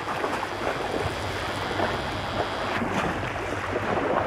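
Steady rushing outdoor background noise, with a faint low hum under it.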